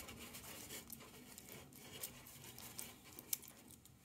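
Faint metallic clicking and rattling of a key being worked in a small brass lock cylinder while trying to pull the key out, with one sharper click about three seconds in.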